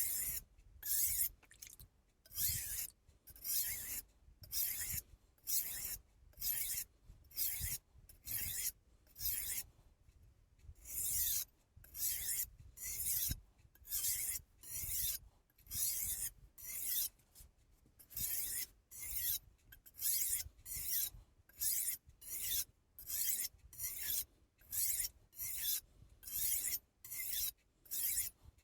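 Kai Shun VG-10 steel knife blade being stroked back and forth across the 1000-grit side of a Solicut combination whetstone: a regular series of hissing scrapes, about one stroke a second, with a short pause about ten seconds in.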